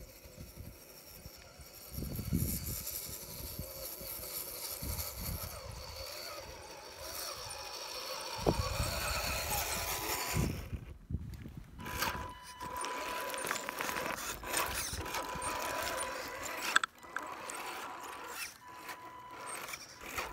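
Whine of an RC4WD Trail Finder 2 scale crawler's electric motor and geartrain as it drives, with gusts of wind on the microphone in the first half. About halfway it becomes a steady high whine with scattered sharp clicks and knocks.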